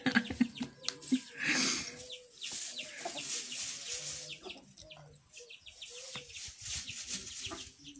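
Chickens clucking now and then, with the clicks and scrapes of a plastic spoon in a plastic bowl.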